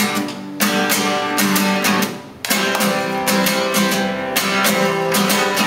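Acoustic guitar strummed in a fast, steady rhythm between sung verses, with a brief break a little over two seconds in.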